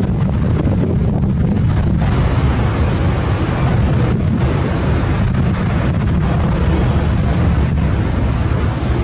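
Steady rumble of wind buffeting the camera microphone, mixed with the jet-engine noise of a Boeing 747 on its landing approach.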